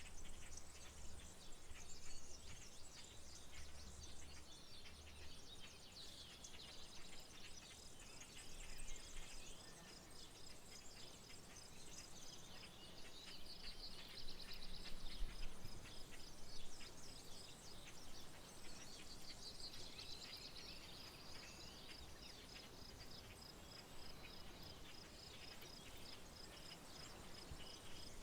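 Rural outdoor ambience: several birds chirping and calling, over a steady, pulsing high insect trill. A low rumble is heard near the start.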